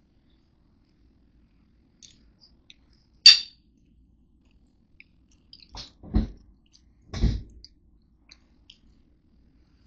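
A person eating close to the microphone: scattered mouth and handling noises. There is a sharp, bright click about three seconds in, then two dull thumps a second apart near the middle.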